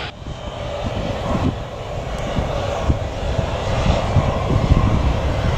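Aircraft engines rumbling low and unevenly, growing steadily louder as the aircraft approaches.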